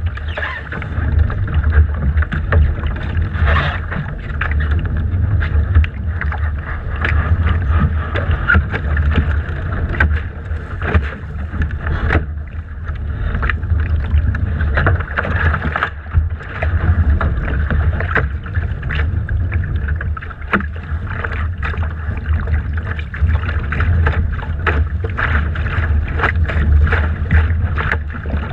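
Wind buffeting the microphone in a steady low rumble, with water splashing and slapping against a Laser dinghy's hull in frequent short knocks as the boat is held at low speed in chop.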